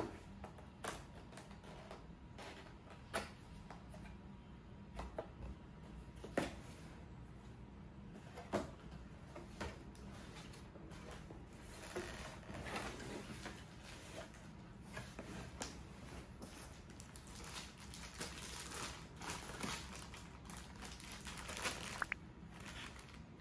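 Handling of a cardboard box: scattered light knocks and taps as it is turned and its flaps are opened, then rustling and crinkling of a plastic bag being pulled out of it.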